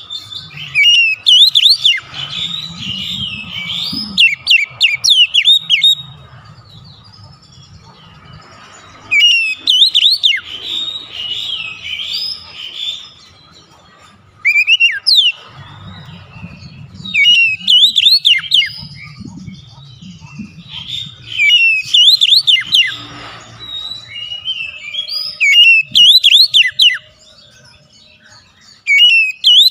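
Oriental magpie-robin (kacer) singing: loud phrases of rapid, sliding whistled notes, coming in bursts of several seconds with short pauses between.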